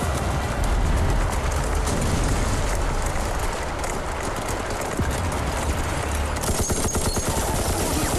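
Battle sound effects: a dense, continuous rattle of rifle and machine-gun fire over a low rumble, the shots packing closer together in the last couple of seconds.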